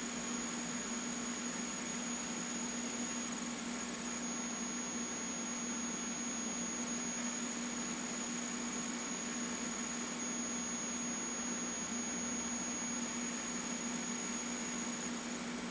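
A PC's CPU cooler fan running with an abnormal noise: a steady high whine and a low hum over the airflow whoosh, unchanging throughout, the sign of a failing, worn-out fan.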